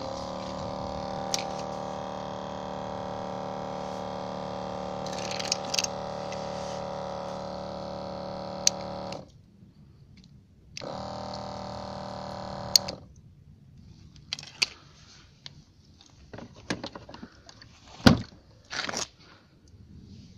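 Electric pump of a Maruyama Kiri Taishō rechargeable sprayer running with a steady hum while water jets from the lance, which has no nozzle cap. The pump stops about nine seconds in, runs again for about two seconds, then stops; after that come plastic clicks and knocks of the lance and tank being handled, the loudest a sharp knock near the end.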